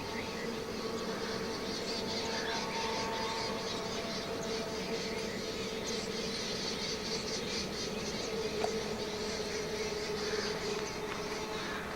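Insects buzzing: a steady drone that wavers slightly in pitch, over fast, high-pitched chirring.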